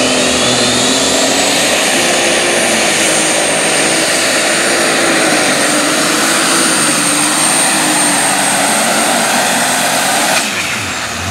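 Case IH Light Super Stock pulling tractor's turbocharged engine running at full power under load as it drags the weight-transfer sled, with a steady high whine over the engine note. Near the end the whine cuts off and the engine falls away as it comes off the throttle.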